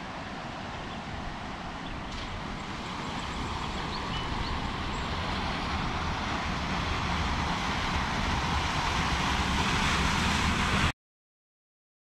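A pickup truck driving through a shallow concrete ford across a creek: its tyres splash through the flowing water and its engine rumble grows steadily louder as it comes closer, over the rush of the creek. The sound cuts off abruptly near the end.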